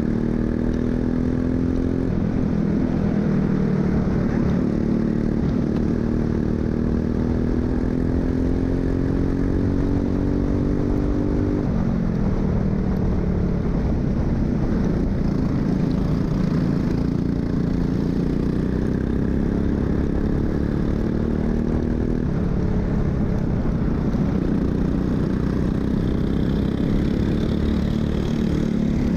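Racing kart engine at full throttle, heard from the driver's helmet, climbing steadily in pitch as it gains speed, then dropping sharply about twelve seconds in and again about twenty-two seconds in before climbing again.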